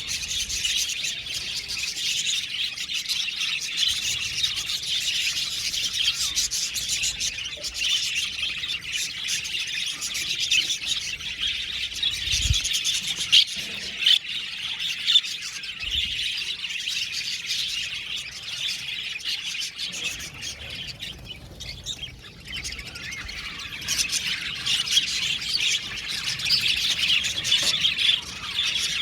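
A flock of budgerigars chattering and chirping continuously, many birds at once, thinning briefly about two-thirds of the way through.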